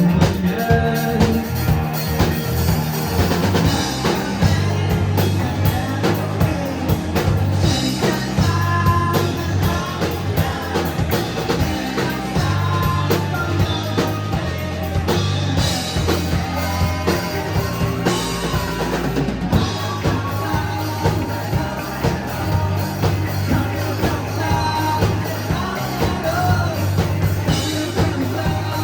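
A rock band playing live, with a drum kit keeping a steady beat under bass, guitars and a lead vocal singing.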